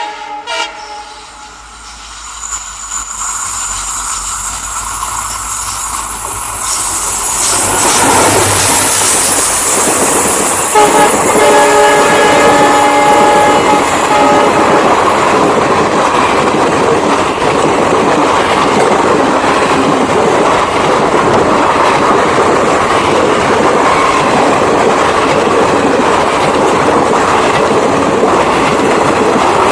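Indian Railways WDP-4B diesel locomotive hauling an express train past. A horn blast cuts off just after the start, and the train's noise swells as the locomotive arrives about eight seconds in. It sounds its horn again briefly a few seconds later, then the coaches roll by with steady clickety-clack of wheels over rail joints.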